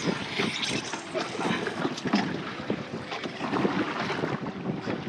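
Wind buffeting the microphone and water sloshing around a small fishing boat, with scattered light knocks and clatter.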